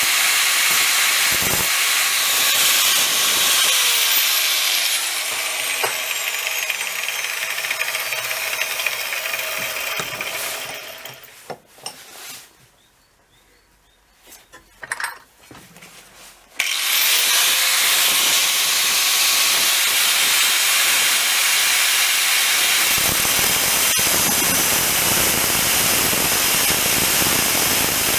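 A grinder grinds a steel drill bit, a steady hissing grind. It winds down and goes quiet about twelve seconds in, then starts up again with a rising whine about four seconds later, and the grinding goes on.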